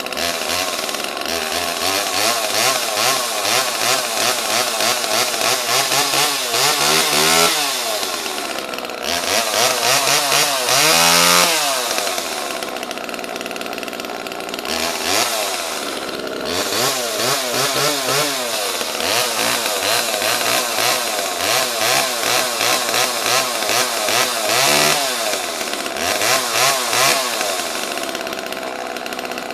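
Homelite XL two-stroke chainsaw running after a fresh start, its throttle blipped so the engine revs up and falls back several times between stretches of steady running.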